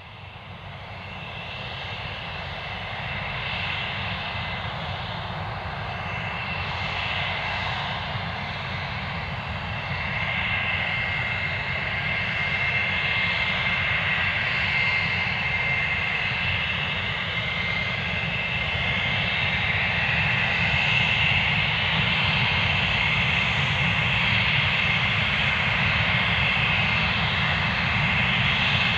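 English Electric Lightning F6's two Rolls-Royce Avon turbojets running at taxi power: a steady high-pitched whine over a low rumble. The sound grows louder as the jet approaches.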